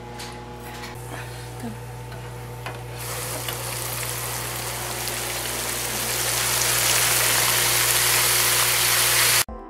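Battered shrimp frying in an electric deep fryer: the oil bubbles and sizzles with a loud, even hiss. It starts about three seconds in, grows louder, and cuts off suddenly near the end.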